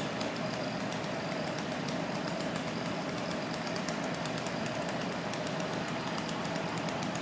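A machine's engine running steadily, with a constant hum and a scatter of small sharp clicks over it.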